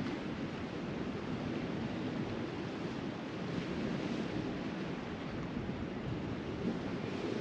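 Steady rush of sea surf breaking on the shore, mixed with wind.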